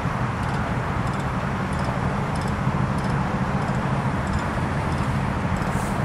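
A large engine idling steadily, a low even hum with faint high ticks about twice a second.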